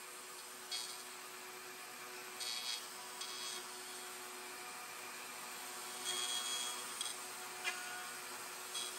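Wood router running faintly with a steady high whine while routing half-blind dovetails in oak on a dovetail jig, with several short bursts of noise as the bit cuts into the wood, the longest about six seconds in.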